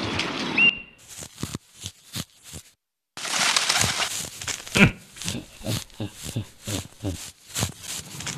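Cartoon sound effects: a sparse run of short soft taps and crunches, a moment's silence, then from about three seconds in a denser, irregular stretch of crunching taps over a light hiss.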